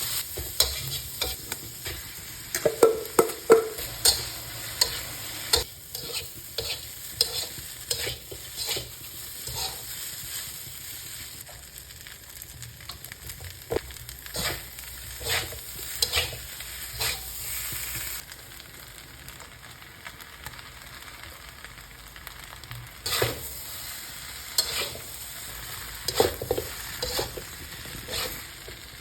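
Pork fried rice sizzling in a pan while a spatula stirs it, with frequent sharp scrapes and knocks against the pan. The sizzle eases about two-thirds of the way through and picks up again a few seconds later.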